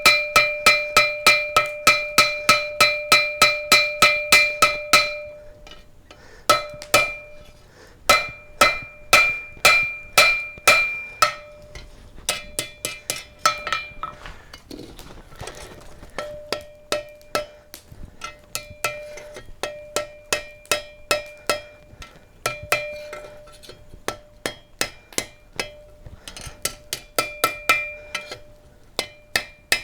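Ball peen hammer blows on hot steel bar stock over an anvil, drawing the steel out, each blow with a bright ringing note. The blows come in quick runs of about three to four a second, broken by short pauses of a second or two.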